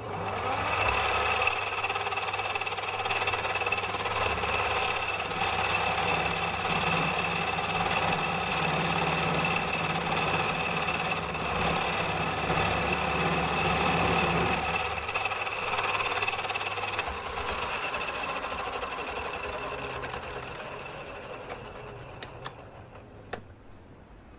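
Mini metal lathe starting up and running steadily with a whine from its motor and gearing. About fifteen seconds in it is switched off and winds down gradually to a stop.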